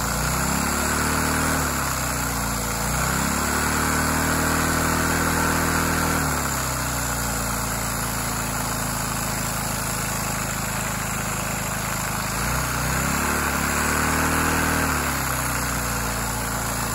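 LEGO vacuum engine running, revving up and dropping back twice, its pitch rising and falling, over a steady rushing hiss of air. It is driving a LEGO Power Functions motor as a generator.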